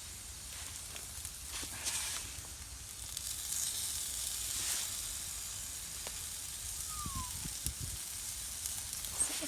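Caramelized red onion and pork sausages sizzling as they fry over a campfire, a steady hiss with scattered small crackles.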